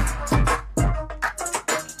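Hip-hop beat with deep bass and drums.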